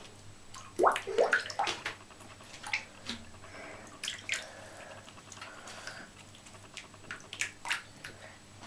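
A cat playing in bath water: irregular small splashes and drips, with a quick cluster of louder splashes about a second in.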